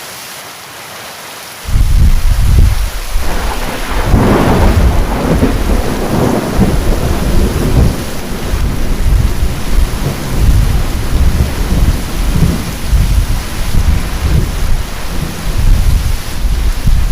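Heavy rain falling steadily, then a sudden loud thunderclap almost two seconds in that rolls on as a long, deep rumble of thunder over the rain, brightest around four seconds in.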